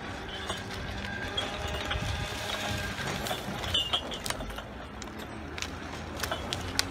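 Log Champ LC650 swing yarder's engine running steadily in the distance while its grapple carriage travels along the skyline cable, with a few sharp clicks.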